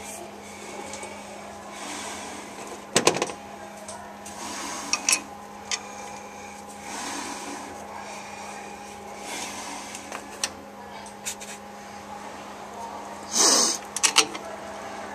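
Screws being started by hand into the bolted steel cap of a suction filter-drier shell: a few sharp metal clicks and clinks, with a short rasp near the end that is the loudest sound. A steady low hum runs underneath.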